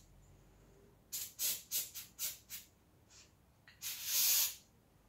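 WD-40 aerosol can spraying: a quick run of about six short squirts, then one longer squirt of nearly a second near the end.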